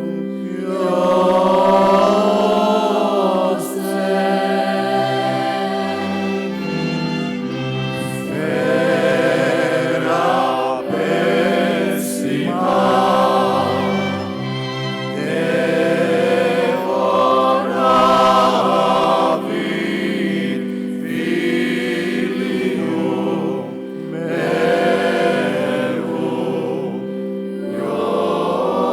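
Choir singing a Lenten motet in phrases of a few seconds each, the voices moving above steady held low notes.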